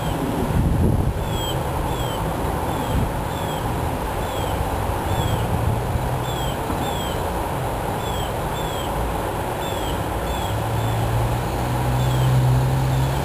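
Steady low rumble of distant road traffic, with an engine hum swelling near the end. Faint short high chirps, each falling in pitch, repeat every half second or so.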